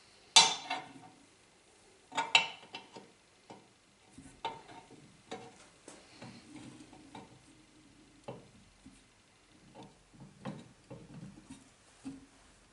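Small steel parts (a shaft, a bush and a block) clinking and knocking on the base of a small bench press as they are set up, with two sharp metallic clinks in the first couple of seconds. Lighter taps and knocks follow as the press lever is worked to bring the quill down onto the shaft.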